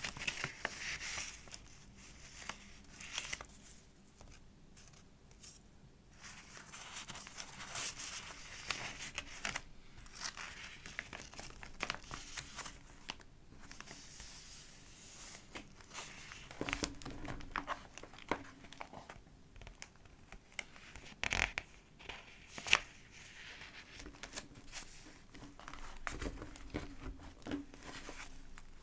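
Pages of a thick collage journal being turned and handled: irregular paper rustling and crinkling, with two sharper snaps or taps about two-thirds of the way through.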